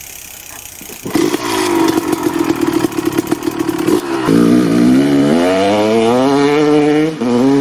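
Motorcycle engine running with a rapid, clattery pulse. About four seconds in it breaks off, then climbs steadily in pitch as the bike accelerates, with another brief break near the end like a gear change.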